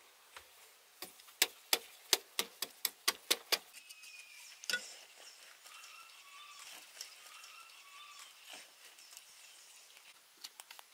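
A hoe blade chopping into hard-packed earth: a quick run of about ten sharp knocks at roughly three a second, then one heavier knock. Faint short bird chirps follow.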